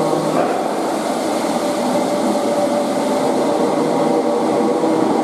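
Merseyrail Class 508 electric multiple unit pulling out of an underground station, its motors giving a steady whine over the rumble of the wheels, echoing in the tiled station and tunnel.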